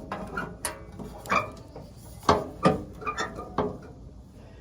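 Irregular sharp metallic clicks and knocks, about six of them, from a hand tool and bolts as a part is lined up and fastened back onto the vehicle.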